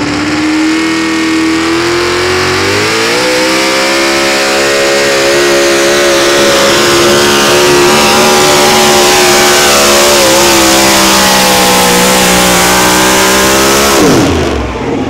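A four-wheel-drive pulling truck's engine at full throttle during a pull. The revs climb over the first few seconds and hold high with a slight waver, then fall off steeply about fourteen seconds in.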